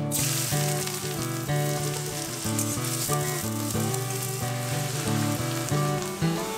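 Sliced onions sizzling the moment they drop into hot mustard oil in a steel wok, a steady frying hiss, over background music.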